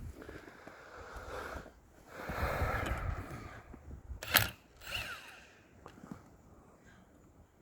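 Tool work on the truck's wheel: a power tool runs in two bursts, then there is a single sharp clank about four seconds in, with quieter handling noise after it.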